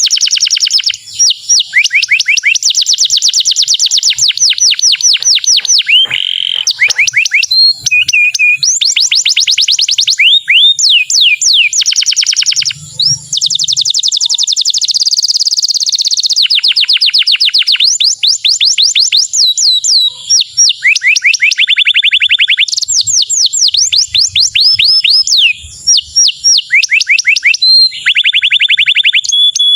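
Male domestic canary singing loudly: a long song of fast trills, each phrase a rapid run of the same chirping note repeated many times a second, switching to a new note every one to three seconds with only brief breaks.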